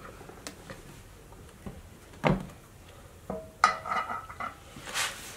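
Scattered light knocks and clinks of kitchenware being handled, the sharpest about two seconds in, with a short ringing clink a little before four seconds.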